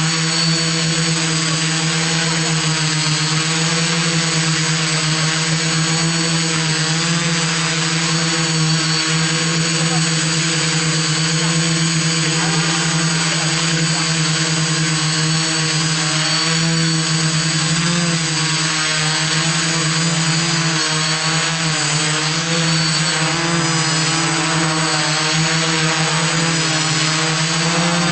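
iDEAFLY IFLY-4S quadcopter's electric motors and propellers whining loudly and steadily in a hover, one low buzzing tone with overtones that wavers slightly as the motors hold position.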